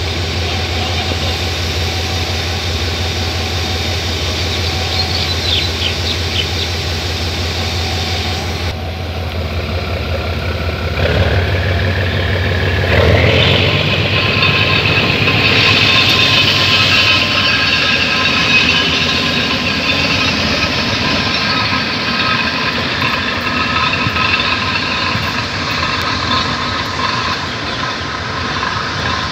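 Davenport diesel-electric shunting locomotive's engine running at idle, then revving up with a rising note about halfway in and running under power with a steady whine as the locomotive pulls away from the uncoupled carriages.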